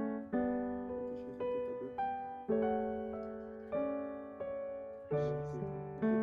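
Soft solo piano background music, gentle notes and chords struck about twice a second, each fading slowly.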